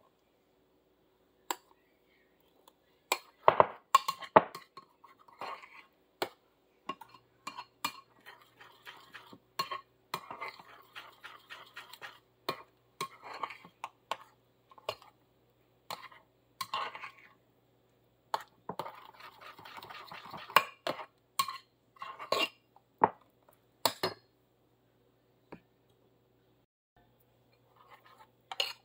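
Metal spoon stirring and scraping pancake batter in a glass bowl, with irregular clinks of the spoon against the glass in bursts and short pauses.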